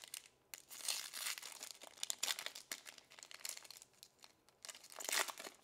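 Crinkly foil wrapper of a pack of Bowman baseball cards being crumpled and torn open by hand, in irregular bursts of crackling.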